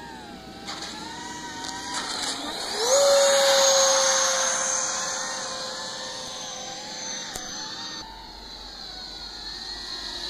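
Electric motors and propellers of radio-controlled model aircraft whining. A wavering whine jumps up in pitch about two and a half seconds in as the throttle opens, then holds a loud steady whine that slowly fades and sinks slightly.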